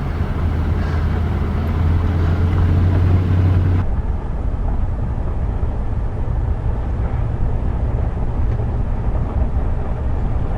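Pickup truck engine running, heard from inside the cab: a steady low hum for the first few seconds, then a rougher, noisier rumble.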